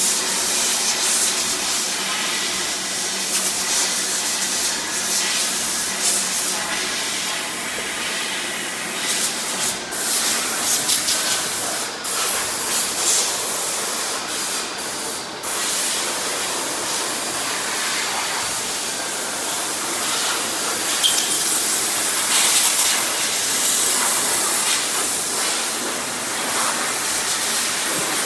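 Engine lathe turning a steel shaft with coolant pouring onto the cut: a steady, hissing cutting noise, broken by a few short dips partway through.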